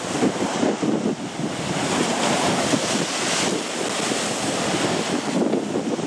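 Heavy surf breaking and churning against rocks, with wind buffeting the microphone.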